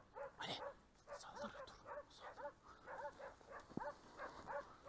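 Boar-hunting dogs barking continuously, faint and far off, about three quick barks a second: a pack giving tongue on a wild boar.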